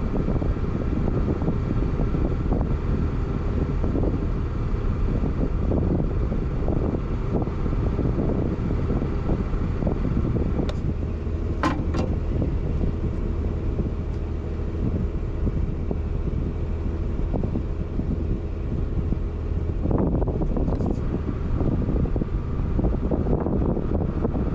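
An engine running steadily throughout, with a few sharp metallic clicks about halfway through.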